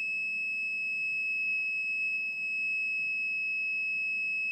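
Continuity buzzer of a Mastech M7040 analog multimeter giving a steady, high-pitched buzz, because its test leads are shorted together while the ohms scale is zeroed.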